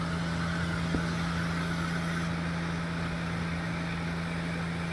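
Large multirotor agricultural drone hovering low at low power, its propellers giving a steady hum. The rotor downwash is blowing rainwater off the ripe rice to dry it for harvesting.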